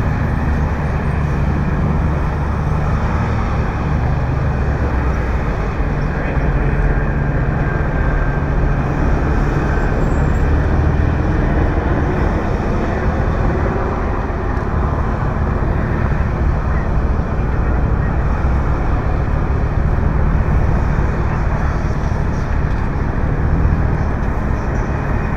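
Steady roadway traffic noise: a continuous dull rumble with no distinct events.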